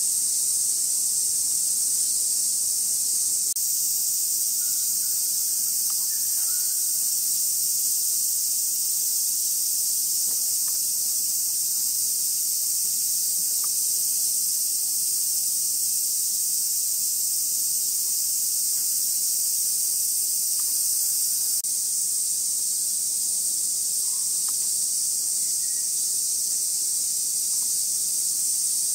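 Summer cicada chorus: a continuous, high-pitched, hissing drone that holds steady throughout.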